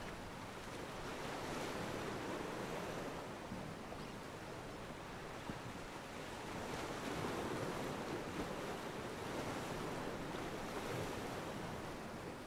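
Ocean waves washing against a pier, a steady wash that swells and eases every few seconds.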